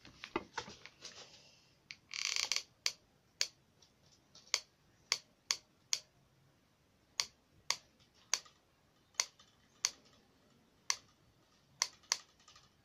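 Hot glue gun's trigger clicking again and again as glue is fed onto a card model, a sharp click about every half second to second, with a brief rustle of handling about two seconds in.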